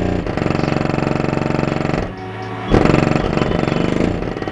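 Bass-heavy music played loud through a car audio system of six 15-inch subwoofers driven by a DB Drive amplifier. The bass briefly drops out about two seconds in, then hits again hard about a second later.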